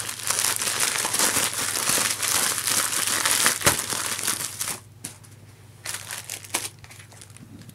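White plastic mailer bag crinkling in the hands as it is opened and its contents pulled out: dense, loud crinkling with sharp crackles for about five seconds, then a few softer rustles of plastic packaging.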